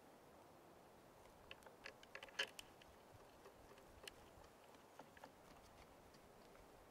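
Faint, scattered clicks and taps of a painter's brush and tools against the wooden palette of an oil-paint box, over near silence. A quick little cluster comes a couple of seconds in, then a few single ticks.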